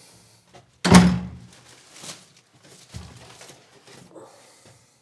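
Flat's front door shutting with a loud thud about a second in, followed by a few softer knocks and clicks as it is locked.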